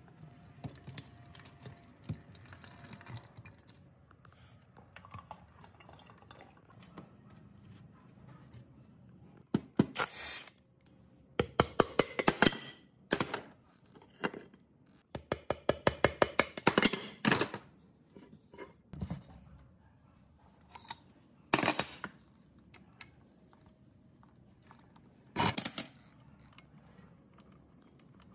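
Metal clicking and clinking from hand tools and parts on the crankcase of a vintage air compressor being taken apart. Several bursts of rapid clicks come in the middle, then three single knocks.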